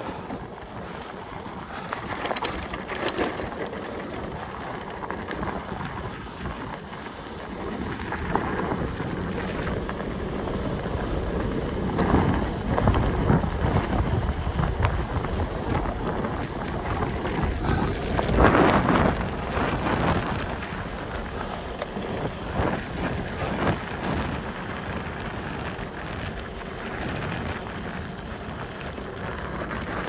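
Wind buffeting the microphone of a moving bicycle, over a rumble of tyres on the road. It swells and eases in gusts and is loudest a little past halfway.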